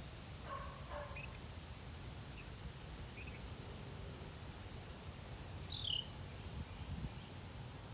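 Scattered short bird chirps in woodland, with one louder call sliding downward in pitch about six seconds in, over a low steady rumble.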